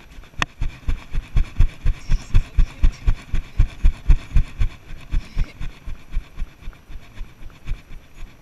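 Icelandic horse's hoofbeats in the tölt on a dirt trail: an even four-beat rhythm of low thuds, about four a second, close up through a chest-mounted camera. The thuds are heavier in the first half, and there is a sharp click about half a second in.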